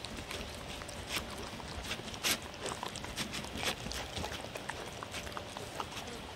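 Two dogs licking and chewing chopped vegetables off a paper plate: an irregular run of clicks and smacks from tongues and mouths, several a second.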